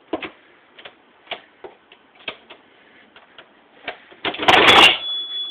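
Antique National Cash Register's keys and levers clicking a few times, then about four and a half seconds in a loud, brief mechanical clatter as the register is worked, followed by a single high ring that lingers: the register's bell.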